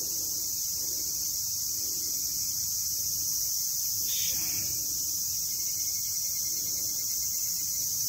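Steady, high-pitched chorus of insects, unbroken throughout, over a low rumble.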